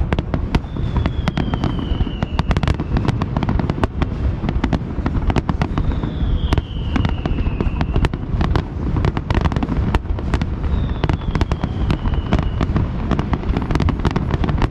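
Aerial fireworks in a dense finale barrage: rapid, overlapping bangs over a continuous low rumble of booms. Three whistling shells rise among them, each a high whistle that falls in pitch over about two seconds.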